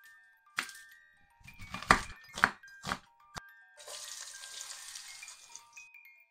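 A knife slicing through an onion and knocking on a wooden cutting board, several sharp strokes, then sliced onion hitting hot oil and sizzling steadily for about two seconds. Light chiming background music plays throughout.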